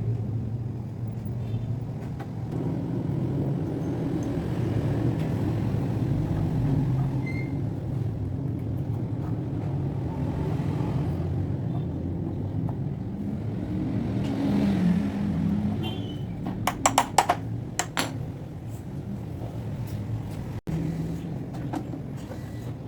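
A steady low mechanical rumble, with a quick run of sharp clicks about three-quarters of the way through.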